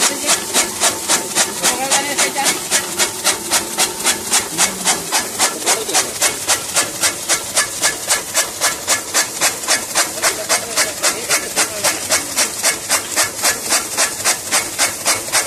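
Flywheel chaff cutter chopping dry straw for cattle fodder: an even run of crisp, rasping cuts, about three a second, as the blades slice through the straw being fed in.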